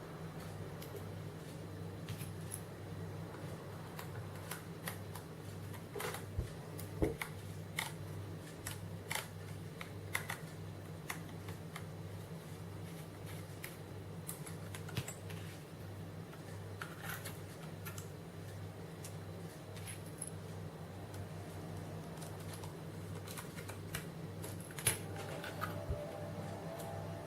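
Scattered small clicks and taps from a SanDisk SSD being handled and fitted into a laptop drive's mounting case, over a steady low hum.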